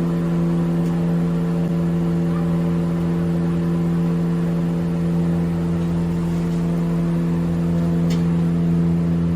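A motor running steadily with an unchanging pitch.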